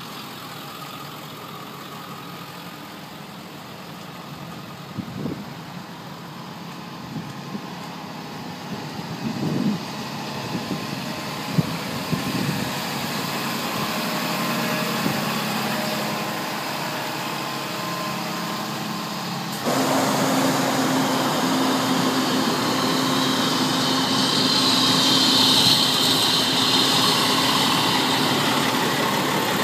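Fire engine diesel engines idling with a steady hum, and a few short knocks in the first half. About 20 seconds in, the sound jumps suddenly louder: an idling fire engine heard close up, with a steady low drone and a hiss that swells near the end.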